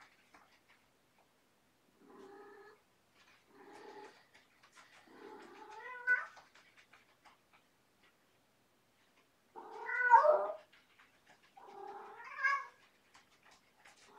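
Adult female cat yowling in about five drawn-out calls, several rising at the end, the loudest about ten seconds in. It is a call for play, not a heat call: she is not in heat.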